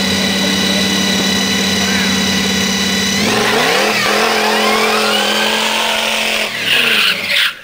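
T-bucket hot rod's engine held at high, steady revs in a burnout. About three seconds in the note shifts and climbs as the car pulls away, then falls as it passes close by, with a high screech near the end.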